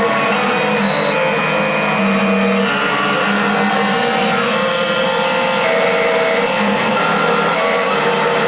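Circuit-bent Yamaha PSS-790 vector synthesizer being played, giving a dense, unbroken mass of overlapping electronic tones that shift and glitch as the bent control logic and the keys interact.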